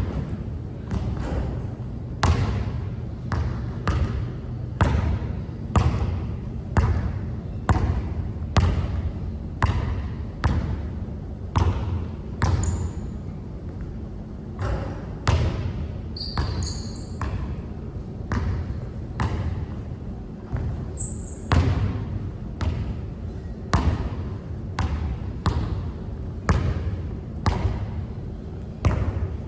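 A basketball being dribbled on a hard court, a steady run of sharp bounces about one to two a second. A few short high squeaks come in about halfway through.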